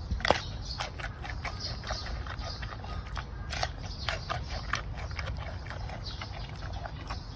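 Short animal calls in quick succession, several a second, over a steady low rumble.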